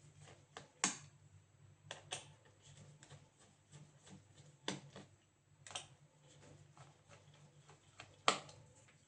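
Sharp clicks and taps of small tools and laptop parts being handled during disassembly: about five louder clicks spread out, with fainter ticks between, over a steady low hum.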